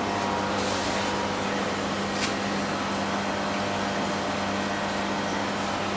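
Steady machine hum: a constant low drone under an even hiss, with one faint click about two seconds in.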